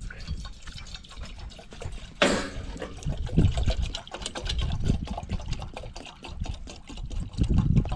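Water pouring from a plastic gallon jug into a cooking pot, glugging and splashing, with a sudden louder burst about two seconds in.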